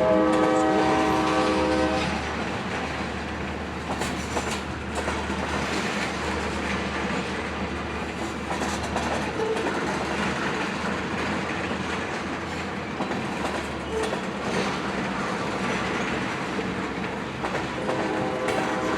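Locomotive horn of a pair of CSX SD40-2 diesels sounding a chord for about two seconds, then the steady low rumble and rail clatter of the moving freight train. The horn starts again near the end.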